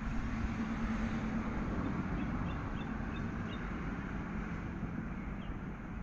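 Steady low rumble of road traffic, its hum strongest in the first few seconds and then easing off. A bird gives a string of faint, short high chirps over it around the middle.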